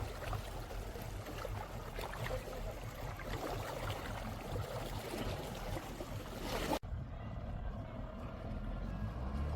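Splashing water and wind noise with no clear engine note, cut off suddenly about two-thirds of the way through by an edit to a quieter low rumble.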